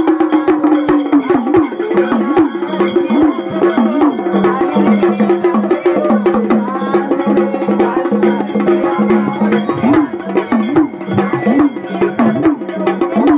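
Gondhal ritual music: fast, dense hand-drumming over a steady held drone, just after a sung phrase ends.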